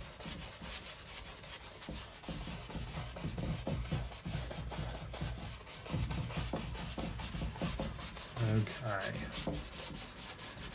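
A stiff hog's-hair brush scrubbing and dabbing oil paint onto a primed, stretched canvas in many short, rapid strokes, giving a dry, scratchy rubbing.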